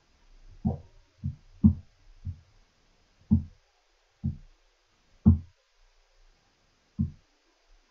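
Background music: a sparse line of deep beats, about eight in all, unevenly spaced.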